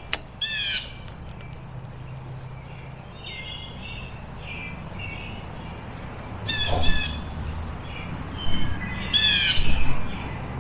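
Wild birds calling: three bursts of rough, downward-sliding calls, one near the start, one about halfway and one near the end, with short chirps in between.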